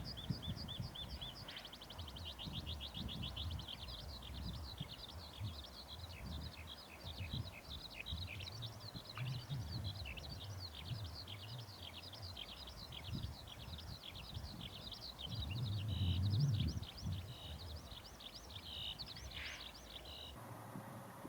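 Songbirds chirping and trilling busily and without pause, over an uneven low rumble that swells briefly about three-quarters of the way through.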